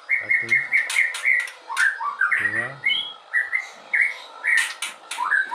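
White-rumped shama (murai batu) chicks calling in a rapid series of short, high chirps, several a second, some of them rising in pitch.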